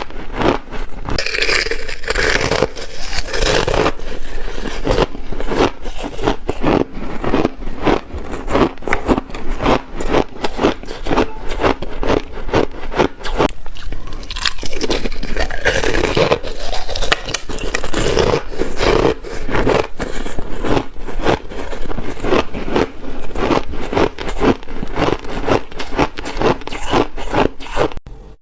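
A person biting and chewing thin, crunchy ice close to the microphone: a dense, unbroken run of crackling crunches.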